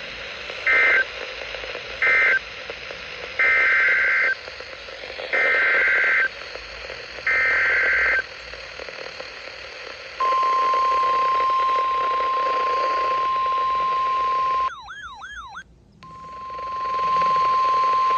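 Emergency Alert System SAME data bursts: two short buzzy bursts that close the previous alert, then three longer header bursts about two seconds apart. Then the steady 1050 Hz NOAA Weather Radio alert tone sounds. Midway it breaks off for about a second of warbling, sweeping tones, then returns, fading in.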